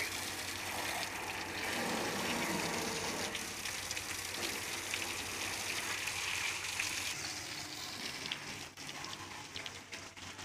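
Water from a garden hose spraying onto a tractor's engine and metal bodywork: a steady rushing spatter that weakens near the end.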